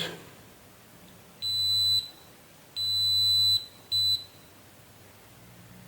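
Multimeter continuity beeper sounding three times, each a steady high beep, the middle one longest and the last short. The beeps show a closed connection as the ground pins of a newly fitted USB-C charging port are probed.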